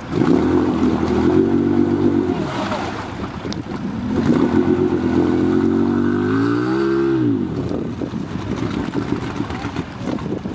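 ATV engine revving hard and held at high revs for about two seconds, easing off, then revving again for about three seconds, climbing a little before dropping away about seven seconds in. Wind rushes over the microphone throughout.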